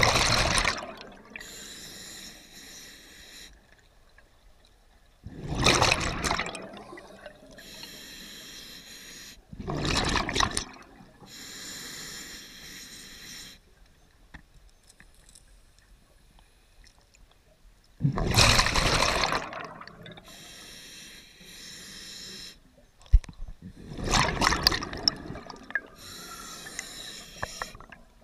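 Scuba diver breathing through a regulator underwater: slow breaths, each a hissing inhale through the regulator followed by a loud burst of exhaust bubbles, with five exhalations in all.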